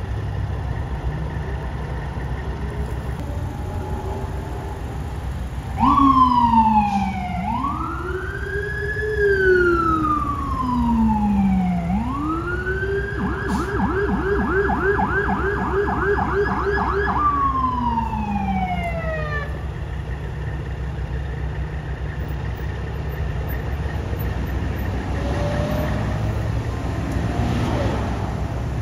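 Electronic emergency-vehicle siren from a police-escorted ambulance convoy. It sounds a slow rising and falling wail, switches to a fast yelp for a few seconds, then winds down and stops about two-thirds of the way through. A steady low rumble of idling and passing traffic runs underneath.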